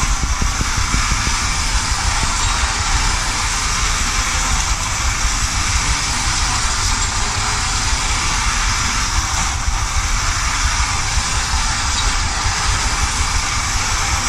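Clockwork wind-up tin toy highway running: the spring motor and the tin cars give a steady, continuous rattle as they shuttle along the metal track.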